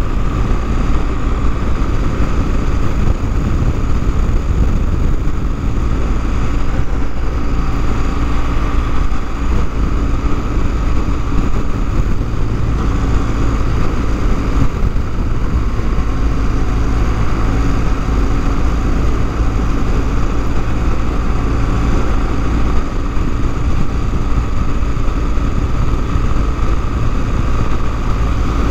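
BMW motorcycle riding at a steady cruising speed. The engine runs at an even pitch under a constant rush of road and wind noise, with no change in speed.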